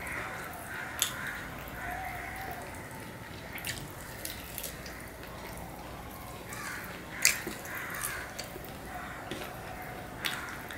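Fingers mixing rice and curry on a steel plate, soft squelching with a few sharp clicks as fingertips knock against the metal.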